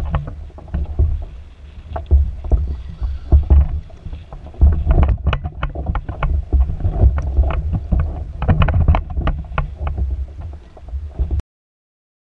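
Wind buffeting the camera microphone as a low, uneven rumble, with small waves slapping irregularly against the hull of a plastic fishing kayak. The sound cuts off abruptly near the end.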